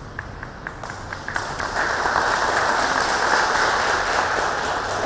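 Audience applauding: a few scattered claps, then about a second and a half in, steady full applause.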